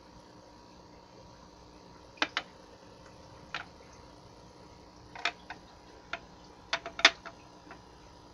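Small stones clicking and knocking against each other and the glass they rest on as they are set down and picked up: about ten short, sharp clicks, scattered and irregular, starting about two seconds in, the loudest near the end.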